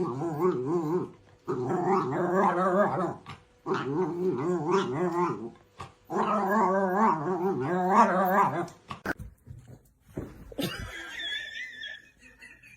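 A dog growling in four long, wavering vocalizations, each a second or two long with short pauses between them. A short, higher-pitched tone follows near the end.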